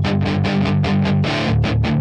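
Rock backing music: guitar chords played in a fast, even rhythm over a bass line, with no vocals yet.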